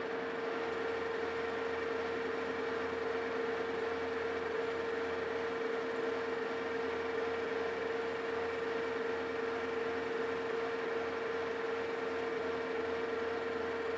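Metal lathe running with the carriage on power feed, its tool taking a light pass that turns a taper on a steel shaft. A steady machine hum with a constant whine that does not change.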